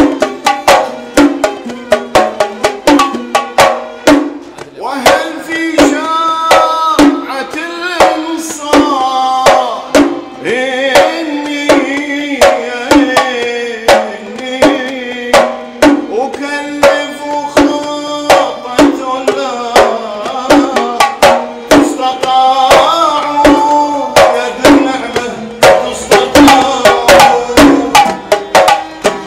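Gulf sawt music: oud with hand-drum percussion beating a steady, regular rhythm, and a sustained melody filling in over the middle of the passage.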